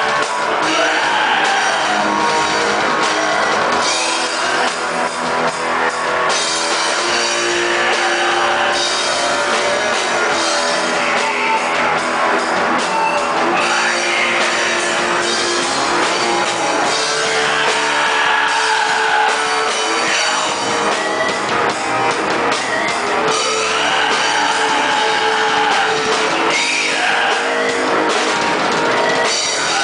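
Black metal band playing live: distorted electric guitars and a drum kit, loud and unbroken.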